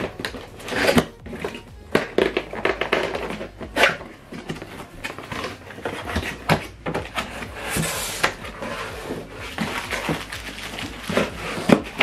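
Cardboard packaging being handled: irregular knocks, scrapes and rustles as a large box's flaps are pulled open and an inner carton and foam packing are shifted. Background music plays underneath.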